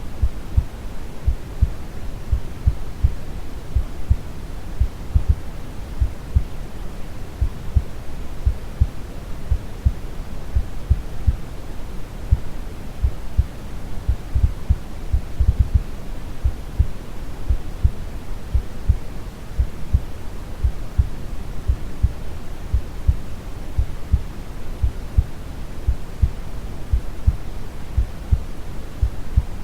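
Brown noise, a steady deep rushing hiss weighted to the low end, with a slow, calm heartbeat thudding softly beneath it.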